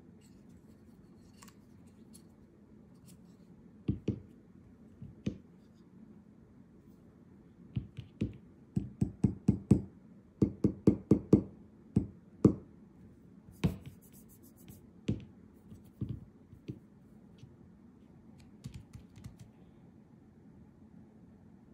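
Hard clicks and knocks of bike computer mounts being handled and set down on a tabletop. A fast run of taps comes in the middle, with scattered knocks before and after.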